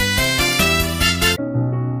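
Background music only: an upbeat track with a steady beat cuts off abruptly about two-thirds of the way through and is replaced by a soft keyboard tune.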